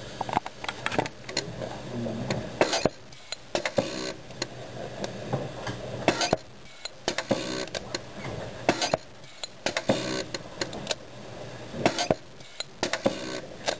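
Packaging machine running, with irregular sharp clicks and clattering knocks several times a second over a steady background.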